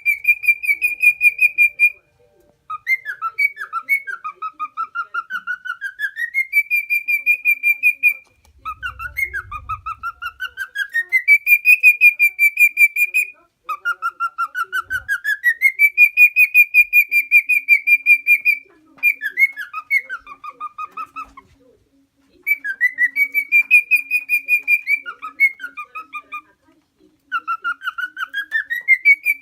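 Male cockatiel singing, a string of whistled phrases. Each phrase slides up and holds a high note with a fast warble, and short pauses fall between the phrases.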